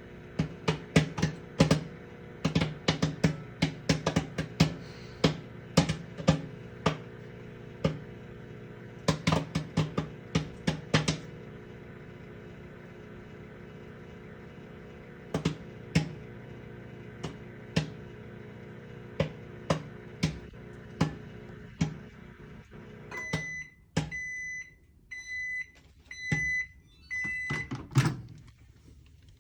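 Popcorn popping inside a running microwave oven: sharp pops over the oven's steady hum, coming thick and fast at first and then thinning out as the popping nears its end. About 23 s in the hum stops and the microwave beeps five times, signalling that the cooking time is over, followed by a clunk or two near the end.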